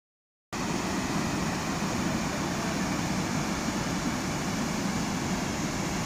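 Steady rush of water pouring over rocky cascades of a waterfall, starting about half a second in.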